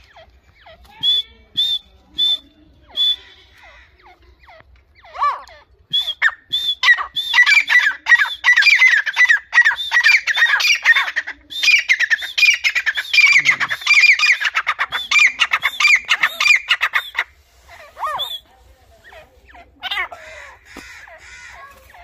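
Grey francolin calling angrily: a few separate high notes at first, then from about six seconds in a long, fast run of repeated calls lasting about eleven seconds that stops abruptly, followed by a few scattered calls.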